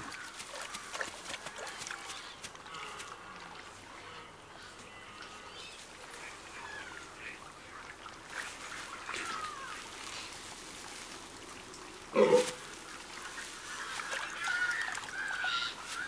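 Red deer calling during mating: quiet calls throughout, one short, loud call about twelve seconds in, and a run of wavering calls near the end.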